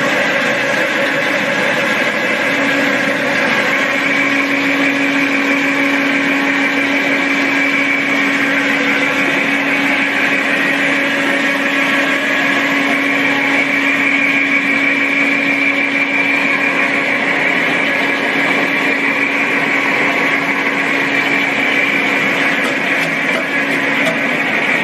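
Vertical powder mixer running steadily as it blends powdered ginger and honey: a constant motor hum with a higher whine above it.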